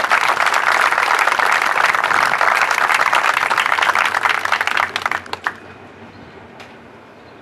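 Audience applauding, the clapping dying away about five and a half seconds in.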